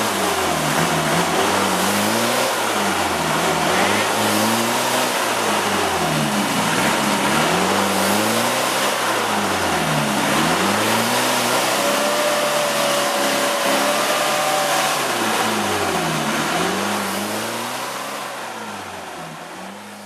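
Off-road 4x4 engine revving up and falling back again and again, about every two seconds, over a steady rush of noise, as it works through mud. The sound fades out over the last few seconds.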